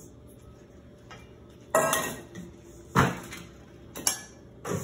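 A spatula knocking and scraping against stainless steel mixing bowls: four sharp metallic clanks, each ringing briefly, as sugar and butter are scraped into a stand mixer's steel bowl.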